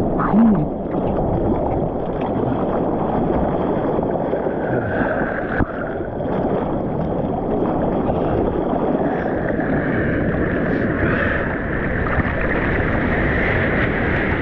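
Seawater rushing and wind buffeting a surfer's GoPro microphone in a steady, loud wash of noise, with a higher hiss swelling about four seconds in and again from about nine seconds on.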